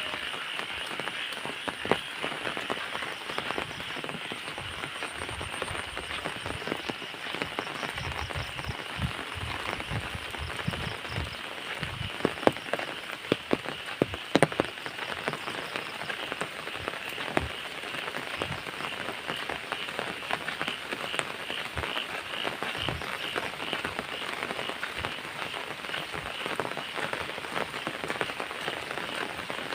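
Steady rain falling, with drops striking close by in sharp taps, a few louder ones near the middle, and a high, pulsing chorus behind it.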